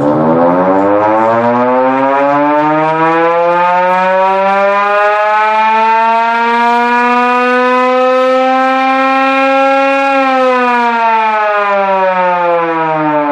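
1920s Federal Electric Type B single-head electric siren, run on reduced voltage well below its 440 V three-phase rating. It winds up in a slow, rising wail for about ten seconds, then winds down in a falling wail.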